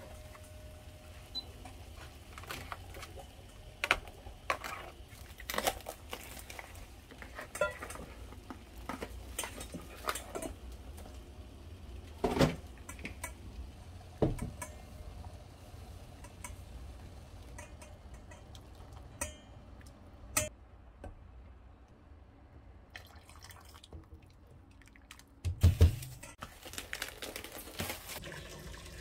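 Scattered clinks, taps and knocks of dishes and utensils being handled in a small kitchen, with a heavier thump about 26 seconds in.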